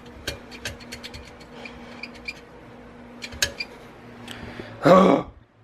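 Garbage disposal motor humming steadily without spinning free, with scattered clicks and rattles from the sink; the blades are jammed by a teaspoon scoop stuck in the drain. The hum cuts off a little under five seconds in, followed by a brief loud noise.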